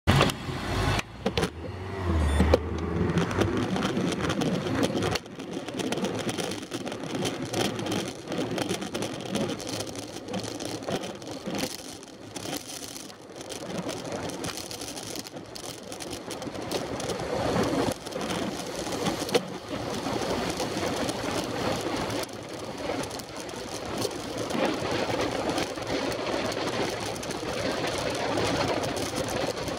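Wind buffeting the microphone of a Shimano CM-1000 action camera on a road bike riding at speed, mixed with road noise and car traffic close by.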